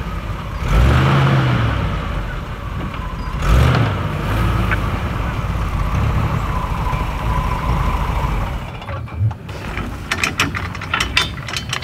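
Old Jeep's engine running as it drives slowly up, with a couple of thumps. About nine seconds in it gives way to a run of sharp metallic clicks and clanks as the lift frame mounted on the Jeep's front is handled.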